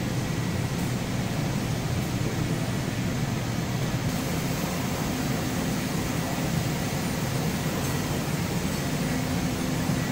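Steady low machinery hum with a fan-like rush, unchanging throughout: powered-up shop equipment or ventilation running.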